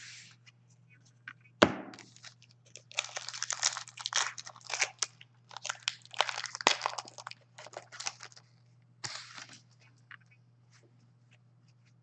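Foil trading-card pack wrappers being torn open and crinkled by hand, in short crackly bursts over several seconds. A single sharp knock comes about two seconds in, louder than the crinkling.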